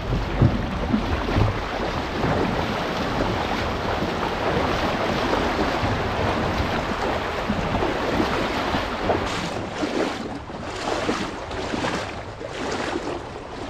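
Rushing, splashing brook water around a small paddled boat working upstream, with wind buffeting the microphone. From about nine seconds in, the water noise comes in separate splashes, like paddle strokes, with short gaps between them.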